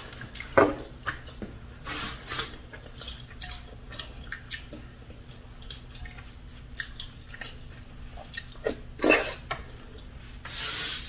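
Eating sounds: chewing and wet, squishy mouth and finger sounds as fufu is dipped in okra soup and eaten by hand, with scattered short clicks and a few louder smacks.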